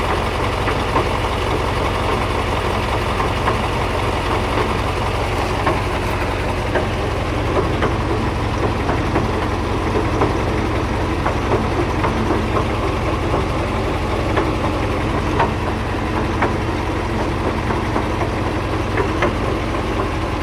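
KamAZ truck's diesel engine running steadily with the drivetrain turning, and irregular knocks and clanks over it from the drive-axle reducer, a sign of a worn or damaged reducer.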